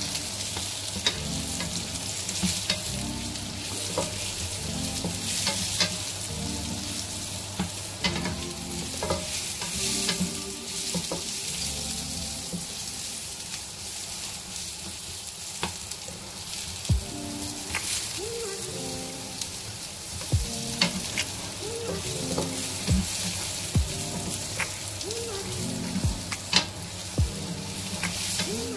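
Sliced mushrooms and onions sizzling in hot oil in a nonstick frying pan as a spatula stirs them, with frequent short scraping and tapping strokes against the pan. They are being sautéed until the mushrooms soften.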